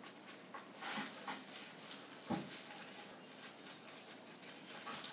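Fresh spruce branches rustling faintly as they are handled and bound with florist wire, with one soft knock a little over two seconds in, over a steady hiss.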